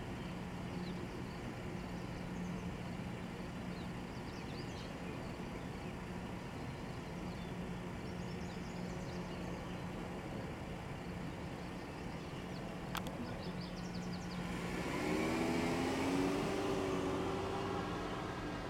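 A steady low hum, with a motor vehicle going by about fifteen seconds in: a swell of engine and road noise whose pitch wavers, loudest for a couple of seconds before fading.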